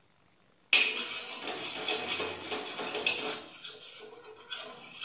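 Steel spoon scraping and rubbing across a hot iron tawa, spreading oil over it in repeated strokes. It starts suddenly almost a second in.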